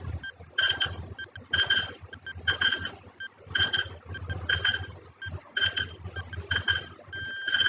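Quiz countdown-timer sound effect: a short beeping tick once a second over a low hum. Near the end it gives way to a rapid, pulsing alarm ring as the count reaches zero.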